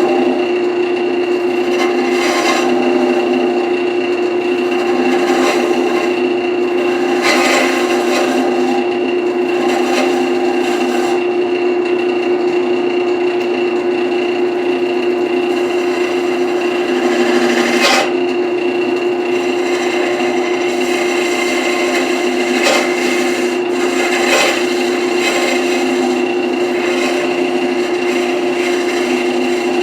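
Wood lathe running with a steady hum while a carbide turning tool scrapes and cuts the spinning wood, with sharper scraping passes now and then, the strongest about halfway through.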